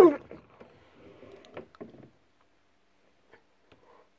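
The last syllable of a voice, then faint rustling with a few light clicks and knocks from handling the phone and puppet under a plastic toy counter. It fades to near quiet about two seconds in, with only a few tiny ticks after.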